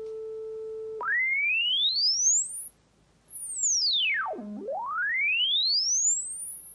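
Pure sine tone from an iPad tone-generator app, played through the iPad's speaker. It holds one pitch for about a second, then sweeps up to a very high whistle, falls to a low tone, and climbs high again as the frequency slider is dragged.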